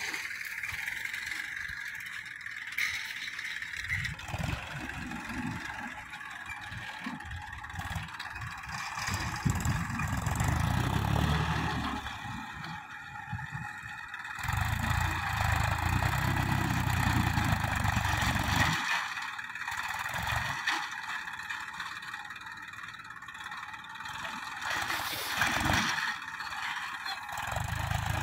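Massey Ferguson 241 DI tractor's three-cylinder diesel engine running under load as it drags a manure-spreading implement through dry soil, with scraping and rattling from the implement. The engine's low rumble comes and goes twice.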